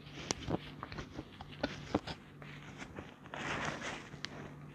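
Someone chewing a piece of dry edible clay, with scattered small crunching clicks. About three seconds in a plastic bag rustles briefly.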